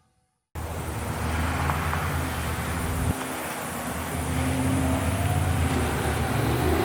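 Steady outdoor rumble and noise that starts suddenly about half a second in. Near the end an outdoor warning siren begins winding up, its tone and overtones rising in pitch.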